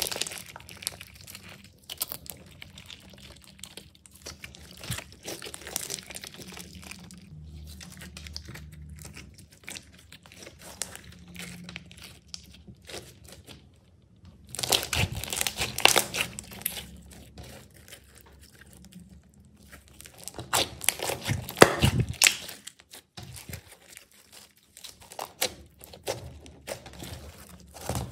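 Slime being squished and worked by hand, with a dense crackling and popping, loudest in two bursts about halfway and about three quarters of the way through.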